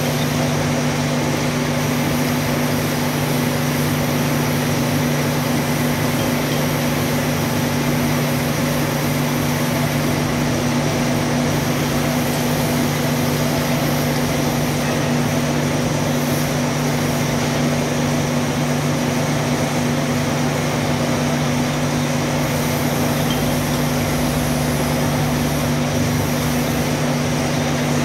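Metal lathe running steadily while a twist drill in the tailstock bores into the spinning steel workpiece: an even machine hum under a constant hiss.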